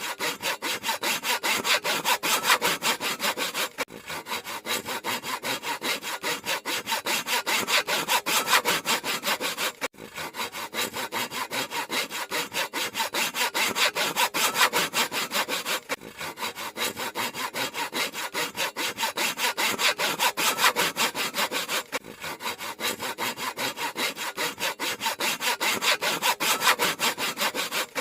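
Handsaw cutting through wood in rapid, even back-and-forth strokes, several a second, with a brief break about every six seconds.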